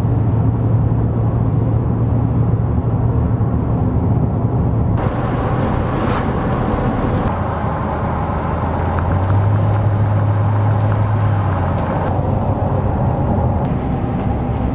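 Steady road noise and engine drone inside a moving vehicle's cabin, with a constant low hum. The sound shifts abruptly at about five seconds and again near twelve seconds.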